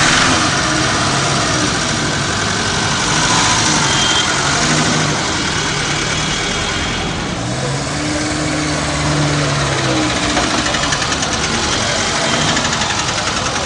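Engine of a small open-top car running as the car is driven slowly, with a steady noisy hum.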